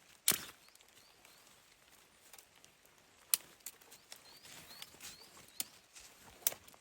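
A few sharp clicks spread over several seconds, the loudest about a third of a second in. Faint short rising chirps come near the middle.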